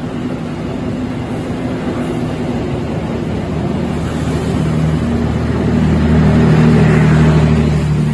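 Passenger train carriages running through the station on the rails, a steady rumble with a low hum that swells to its loudest about six to seven seconds in.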